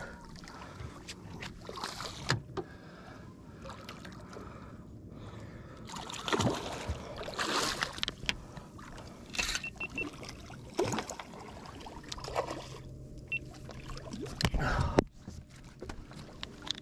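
Hooked redfish splashing at the surface beside a small skiff, water sloshing against the hull, with scattered knocks and rustles from the rod and landing net as the fish is netted.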